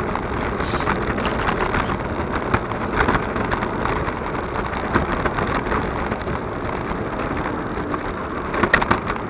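Steady road and wind noise from a Superpedestrian electric scooter rolling along an asphalt street, with a few short knocks and rattles from bumps in the road.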